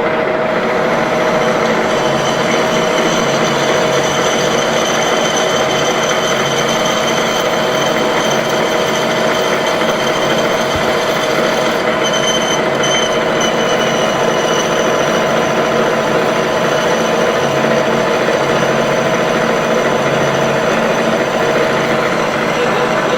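Metal lathe running as it bores out the inside of a workpiece, a steady mechanical noise with a high-pitched cutting whine from about two seconds in until about fifteen seconds in.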